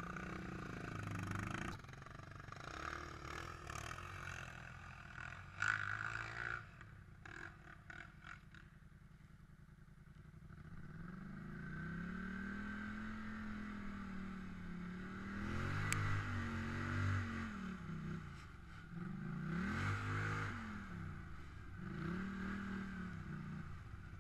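Polaris Scrambler 850 ATV engine revving up and down in four long swells while riding up a snowy climb, with knocks and rattles in the first several seconds.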